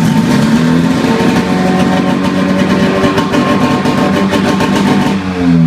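Two-stroke snowmobile engine running with a Polaris XC expansion pipe and muffler held on by hand. The revs rise briefly at the start, hold fairly steady, then drop away in pitch near the end.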